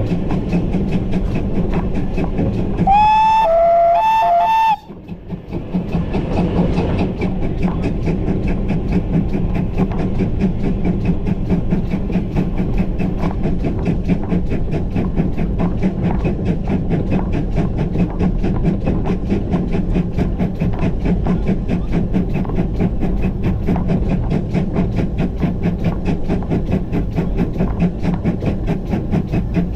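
GWR Grange class steam locomotive 6880 Betton Grange running under way, heard from the footplate: a steady rhythmic exhaust beat and rail clatter. About three seconds in, its steam whistle sounds in a few short blasts that step between a higher and a lower note.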